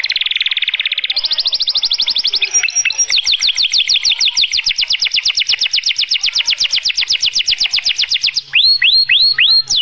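White domestic canary singing a long, varied song: a fast trill, then a long run of rapid repeated sloping notes, about eight a second. Near the end it changes to slower falling whistled notes, about three a second.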